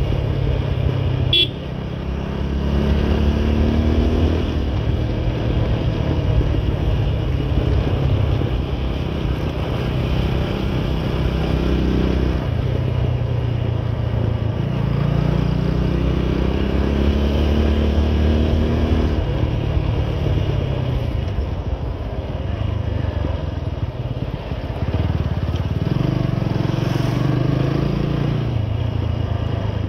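Motorcycle engine running under way, its pitch climbing and dropping several times as the rider opens and closes the throttle. There is one short sharp high sound about a second and a half in.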